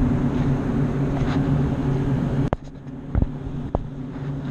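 Steady low drone of rooftop ventilation and air-conditioning units running, with wind noise on the microphone. The wind noise drops off suddenly a little past halfway, followed by a click and two short knocks.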